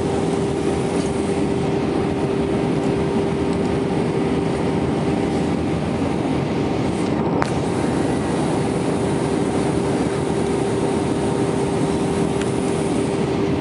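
Steady Airbus airliner cabin noise from a window seat during descent: engine and airflow rushing, with a steady low hum throughout. One faint click about halfway through.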